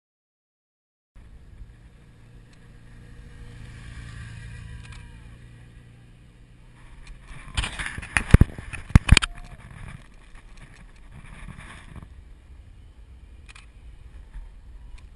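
Wind and road noise on a camera mounted on a road bike's handlebars while riding. Sharp knocks and rattles come in a burst about eight to nine seconds in, two of them the loudest.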